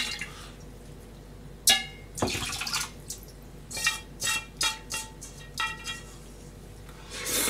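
Liquid poured from a hammered yukihira pan into a small metal saucepan, with sharp ringing clinks of metal on metal as the pans knock together: one about two seconds in and several more between four and six seconds.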